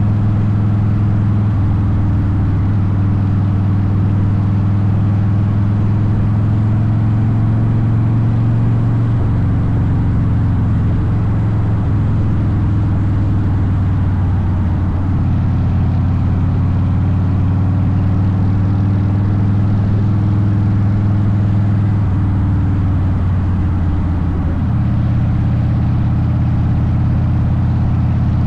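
Harley-Davidson Softail Deuce's air-cooled V-twin running through a Vance & Hines aftermarket exhaust while riding at road speed, a steady low drone whose pitch steps a few times with throttle and gear changes.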